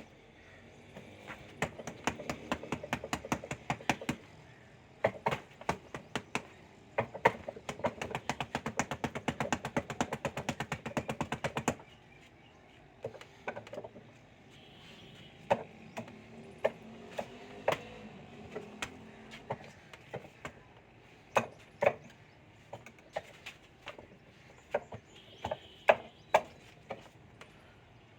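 Hands and forearms striking a wooden Wing Chun dummy: sharp wooden clacks in short clusters, with a fast, unbroken run of strikes lasting about five seconds around the middle, then slower, spaced hits.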